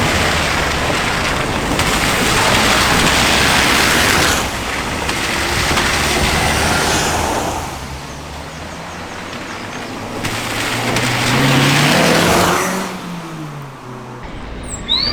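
Cars driving through a flooded ford: water rushing and spraying off the tyres in three loud surges. Near the end, an engine is heard as a car passes, its pitch rising and then falling.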